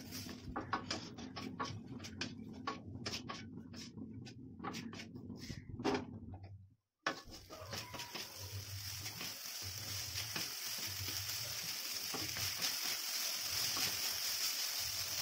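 Wooden spatula scraping and clicking against a brass kadhai as egg fried rice is stirred and tossed, many quick knocks. After a brief cut about seven seconds in, a steady sizzle of the rice frying on high flame, with occasional light scrapes.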